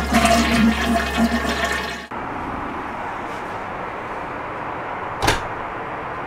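A toilet flush rushes for about two seconds and cuts off abruptly. It gives way to the steady rush of airliner cabin noise inside an Airbus A380 lavatory. About five seconds in comes one sharp click from the lavatory door latch.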